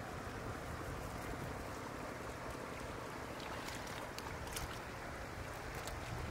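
Steady outdoor noise of wind and shallow floodwater, with a few faint light splashes and ticks in the middle as a wet cast net and fish are handled in the water.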